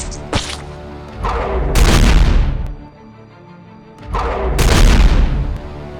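Two loud booming impact effects, each swelling up and dying away over about a second and a half, three seconds apart, over background music.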